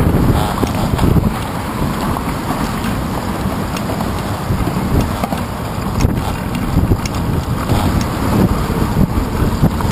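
Wind buffeting the microphone of a handlebar-mounted GoPro as a bicycle rolls along, a steady low rumble with a few short knocks from the bike over the pavement.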